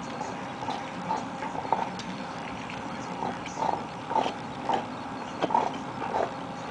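A Rhodesian Ridgeback gnawing a jumbo knuckle bone: irregular crunching, scraping and knocking of teeth on bone, coming more often and louder from about three and a half seconds in.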